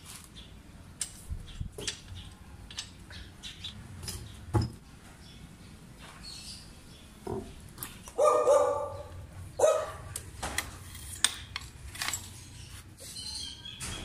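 Scattered clicks and light metallic taps of hand tools on bicycle parts as components are fitted and adjusted. Loudest are two short animal calls, about eight and nine and a half seconds in.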